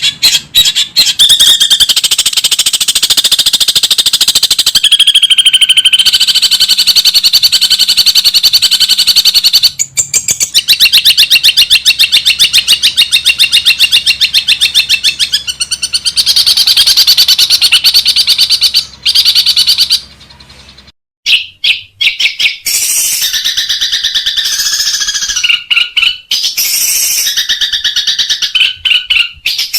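Long-tailed shrike (cendet) singing a loud, rapid-fire chattering song of fast repeated notes. The song breaks off briefly about two-thirds of the way through, then returns in shorter, more varied phrases.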